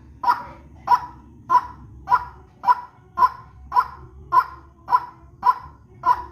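Lure recording of a white-breasted waterhen (ruak-ruak) calling a harsh, short note over and over, at an even pace of just under two calls a second.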